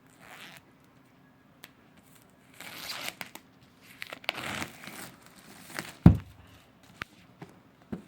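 Plastic wrapping being torn and crinkled while an iPad Pro box is unwrapped, in several rustling bursts. A sharp thump about six seconds in, as the box is handled, is the loudest sound, followed by a couple of light clicks.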